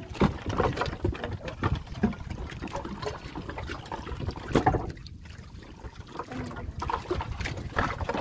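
Water splashing and trickling, with irregular knocks over a low rumble.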